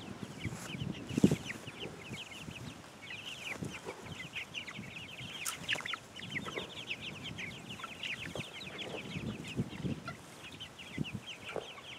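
A flock of hens chirping and clucking softly, with many short, high calls overlapping, and a thump about a second in.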